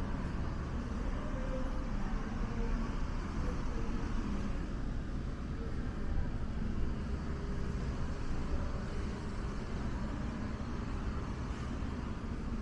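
Steady low rumble of background noise, with faint short hums now and then.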